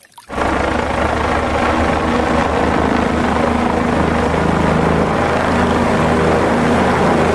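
A light helicopter flying overhead, running steadily with a fast low pulsing from the rotor and a thin high whine. It starts suddenly just after the start and cuts off abruptly near the end.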